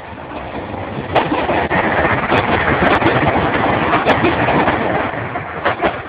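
Train passing close by at speed: a loud, steady rush of running noise with several sharp clacks as the wheels cross the rail joints.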